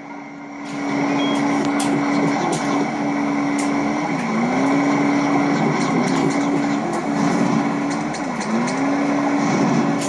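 A car engine running at steady revs, its pitch dipping and recovering twice, about four and eight seconds in.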